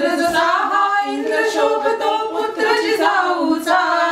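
Three women singing a Marathi cradle song (pāḷaṇā) together, unaccompanied, in drawn-out held notes.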